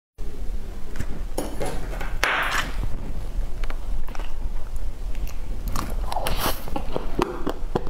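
A spoon digging into a cream-frosted sponge cake, followed by wet mouth sounds of biting and chewing the soft cake.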